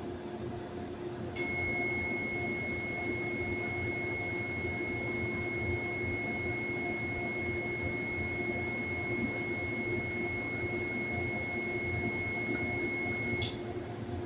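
A loud, steady, high-pitched electronic tone comes on suddenly about a second and a half in, holds at one pitch for about twelve seconds, and cuts off suddenly near the end.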